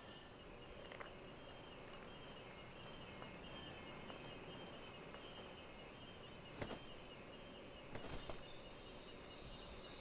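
Faint forest ambience of insects chirring steadily, broken by a sharp click past the middle and a short cluster of clicks over a second later.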